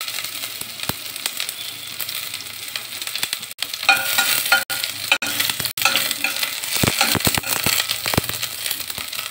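Sliced onion sizzling in hot oil in a stainless steel pot, stirred with a spatula that scrapes and clicks against the pot, with several sharp clicks in a cluster late on.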